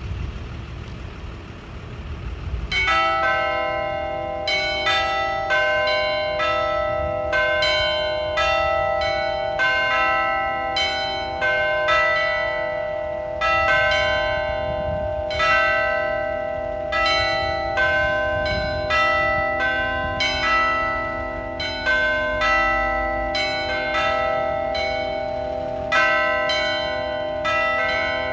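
Several church bells in the bell tower ringing one after another, starting about three seconds in: a steady succession of strokes at different pitches whose tones hang on and overlap.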